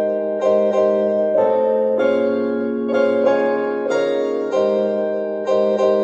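A keyboard melody of held, ringing notes that change every half second to a second, played back through a Bugani M118 portable Bluetooth speaker during a volume test.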